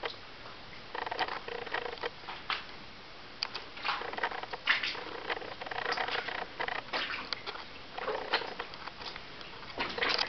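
Footsteps crunching and scuffing irregularly on gravel and loose rock, with a pause of about a second near the start.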